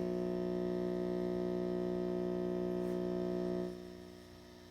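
1997 Matchless Chieftain Reverb EL34 guitar amp putting out a steady, buzzy mains hum from a fault in its reverb circuit, which the owner has not been able to trace. Near the end the hum drops sharply to a faint hum and hiss as the reverb is turned down.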